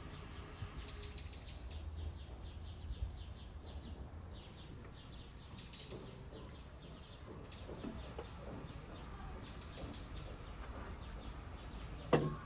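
Small birds chirping and trilling over a low steady background hum. Near the end comes one sharp clink, a glass tea glass set down on its saucer.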